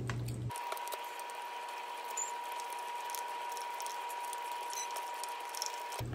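Silicone spatula stirring and scraping a ricotta and egg mixture in a stainless steel mixing bowl: soft scrapes and small clicks against the metal, over a faint steady tone.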